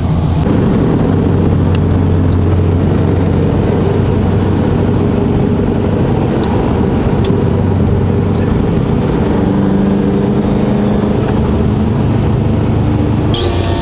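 Subaru STI's turbocharged flat-four engine running steadily, a low even drone whose pitch shifts slightly about two-thirds of the way through.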